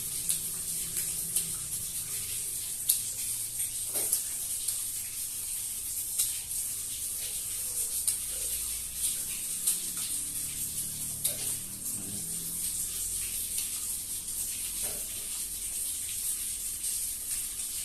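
A steady high hiss under scattered sharp clicks and crunches of someone eating crispy fried chicken cartilage.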